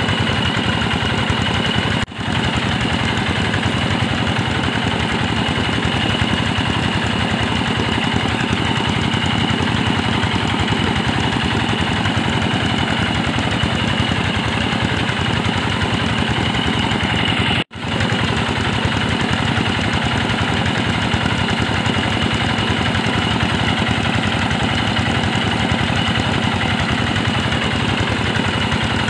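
Engine-driven water pump running steadily, pumping water into the fishing pond. It drops out for an instant twice.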